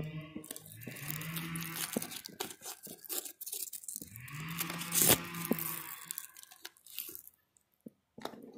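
Velcro straps on a bike pannier being ripped open and pressed shut, in short rasps, the loudest a sharp rip about five seconds in. A chainsaw runs in the background and revs up twice, about one and four seconds in.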